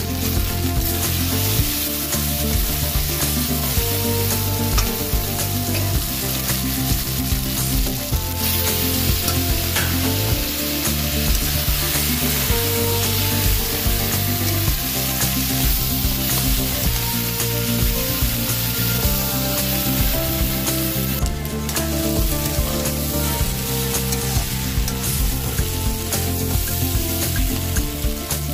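Jackfruit pieces in masala sizzling steadily as they fry in a kadhai, stirred and turned now and then with a flat steel spatula.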